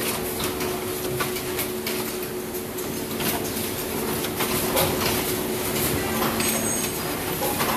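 Automatic coat hanger production line running: a steady machine hum with frequent, irregular clicks and clacks from its mechanisms and plastic parts.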